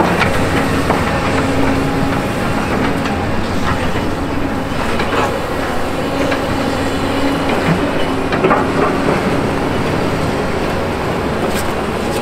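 Doosan excavators' diesel engines running steadily under load, with irregular knocks, scrapes and clatter from their buckets and thumbs working through barn demolition debris.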